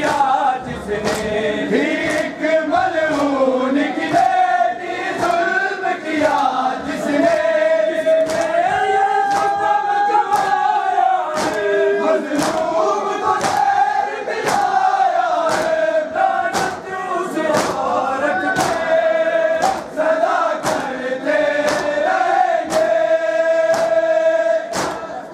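Men's voices chanting a noha, a Shia lament, together as a group, over a steady beat of sharp slaps from hands striking chests in matam.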